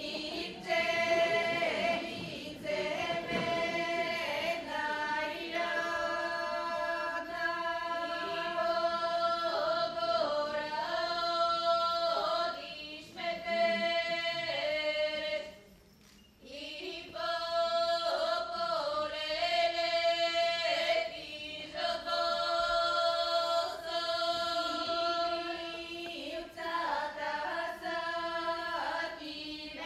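Bulgarian women's folk ensemble singing a polyphonic song in parts, the melody moving over a steady held drone, in long sustained phrases with a short break about halfway through.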